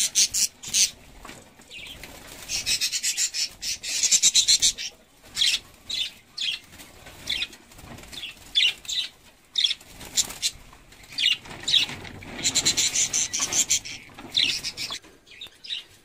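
Lovebirds in a wire cage flapping their wings in repeated flurries and calling in sharp, high chirps, alarmed as a hand reaches in to catch them.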